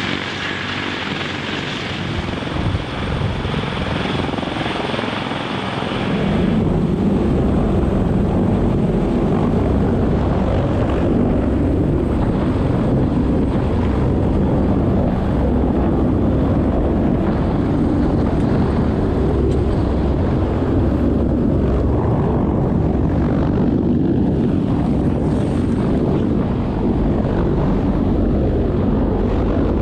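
CH-53K King Stallion heavy-lift helicopter hovering low, its rotors and turbine engines running loudly and steadily. About six seconds in, the sound changes to a louder, heavy low rumble as the microphone is beneath the aircraft in its rotor downwash.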